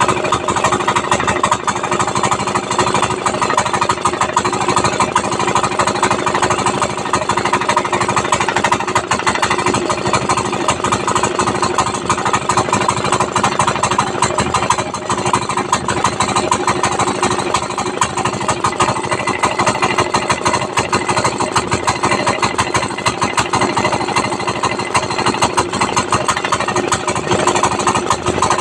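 Yamma 192F single-cylinder air-cooled diesel engine running steadily with a rapid, harsh diesel knock, exhausting through a short open elbow pipe without a muffler.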